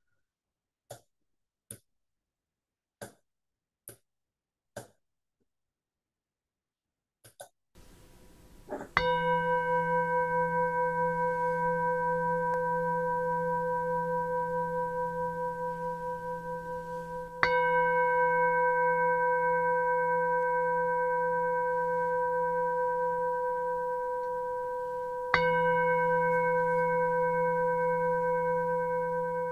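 Singing bowl struck three times, about eight seconds apart, each strike ringing on with a slowly fading, gently wavering tone. A few faint ticks come first.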